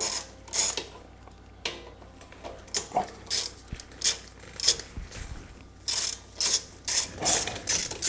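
Socket ratchet clicking in short strokes, two or three a second with brief pauses, as a carburetor mounting bolt on a Honda GCV160 engine is backed out.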